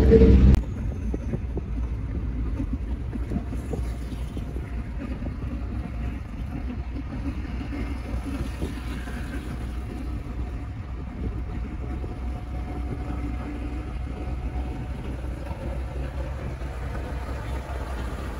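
Road noise inside a moving car: a steady low rumble of engine and tyres.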